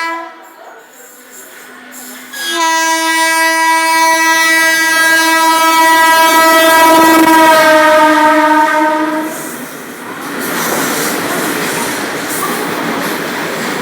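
WAG-5HA electric freight locomotive's horn sounding one long blast a few seconds in, its pitch sagging slightly near the end, just after the tail of an earlier blast. Then comes the steady rolling rumble and clatter of freight wagons passing.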